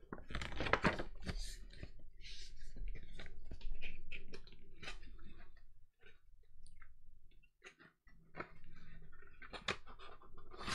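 Pages of a clothbound hardback book being turned and handled: irregular papery rustles and crinkles, with a couple of brief pauses in the second half.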